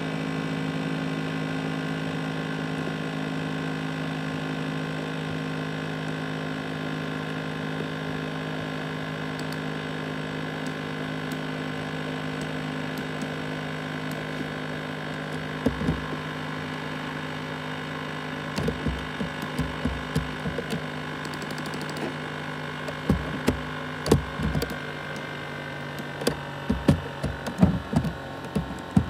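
Laptop CPU cooling fan running with a steady hum of several tones that sag slightly in pitch. From about halfway, irregular clicks and knocks come in and grow more frequent toward the end.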